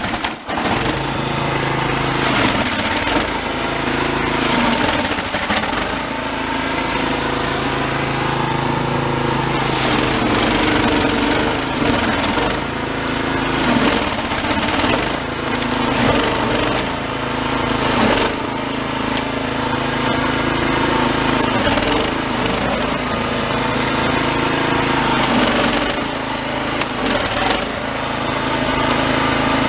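Toro Snowmaster 724 QXE snowblower's four-stroke engine running steadily under load, with the auger and impeller chewing through deep, heavy snow and throwing it out the chute. The engine note wavers a little as the load changes.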